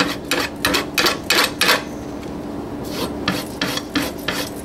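Sabatier kitchen knife being stropped on a leather strop: quick, even rubbing strokes, about five a second, that pause for about a second midway and then resume.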